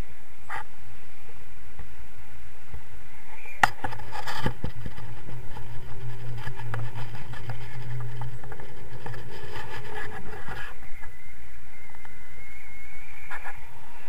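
Wind rushing over a camera microphone during a tandem paraglider flight: a steady, loud rush with a low hum in the middle and a couple of sharp knocks about four seconds in.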